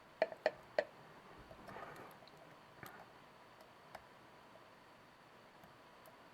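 Lock picks and a tension wrench clicking in a Kwikset SmartKey lock: three sharp clicks in quick succession in the first second, a short rustle around two seconds in, then sparse faint ticks.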